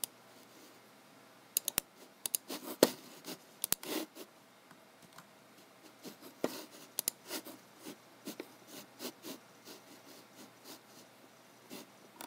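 Hands working a computer's mouse and keyboard: scattered sharp clicks, including a quick run of three about a second and a half in, mixed with short scraping and rubbing strokes.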